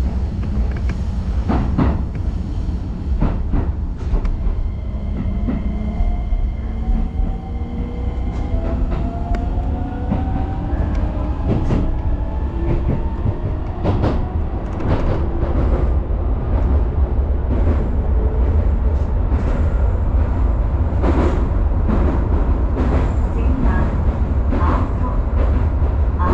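Keisei Line electric train running on track, a steady low rumble with repeated clicks of the wheels over rail joints. Through the middle a motor whine rises in pitch as the train picks up speed.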